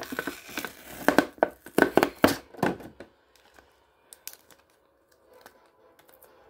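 Clear plastic blister packaging crinkling and crackling as hands pull at it to free a stuck piece. It is dense for about the first three seconds, then drops to a few faint clicks and rustles.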